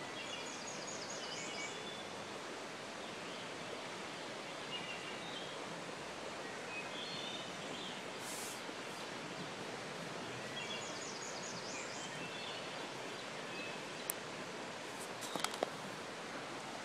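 Steady rush of a creek flowing over rocks, with songbirds calling over it. One bird sings the same quick phrase twice, about ten seconds apart. A few sharp clicks come near the end.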